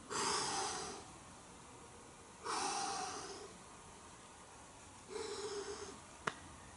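A person's forceful breaths out, three of them about two and a half seconds apart, then a single sharp click near the end.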